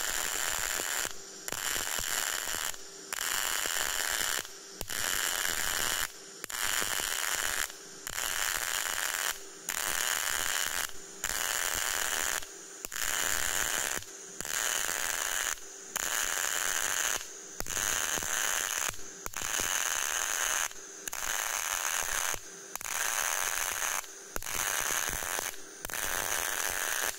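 Semi-automatic CO2 welding arc on low-current solid wire, crackling in bursts of about a second and a quarter with short breaks between, about sixteen times. The torch is triggered on and off again and again for a stitch (kirimori) pass on a vertical fillet weld.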